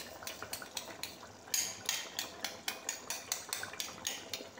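A metal spoon scraping and clinking against a ceramic bowl as thick whisked yogurt is scooped out of it: a run of quick, light clicks and scrapes, busier from about one and a half seconds in.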